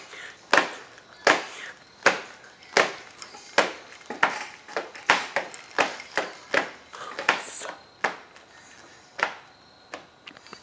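Sharp percussive hits in a steady rhythm, about four every three seconds. They space out near the end.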